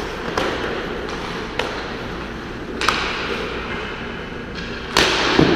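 Ice hockey practice: sharp knocks of pucks striking sticks, boards and glass, five in all, the loudest about five seconds in, over a steady wash of rink noise from skates on the ice.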